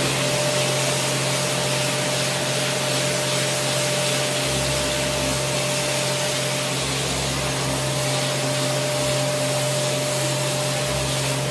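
Electric sander with 80-grit paper running steadily against a grafiato-textured wall, grinding down the old texture: a continuous motor hum with a steady whine over the abrasive noise.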